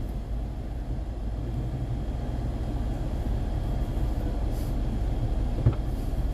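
Steady low road and engine noise of a moving car, with one short knock near the end.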